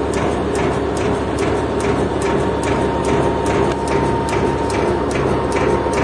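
Putzmeister truck-mounted concrete pump running: steady diesel and hydraulic machinery noise with a faint constant tone and a regular ticking about four times a second, the hydraulic system freshly refilled after an oil and filter change.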